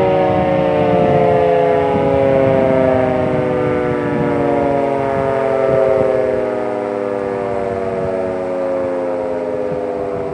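CFS fire siren winding down: a chord of several siren tones falls slowly in pitch and gradually fades.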